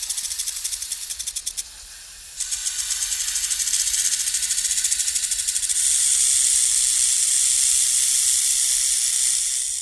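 Snake sound effect: a rapid, buzzing, rattle-like hiss with a short dip about two seconds in. It then smooths into a steady, louder hiss that fades out near the end.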